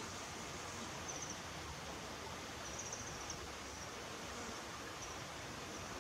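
Steady outdoor background hiss with faint, brief high-pitched chirps at intervals, about five short clusters. None of it is woodpecker drumming.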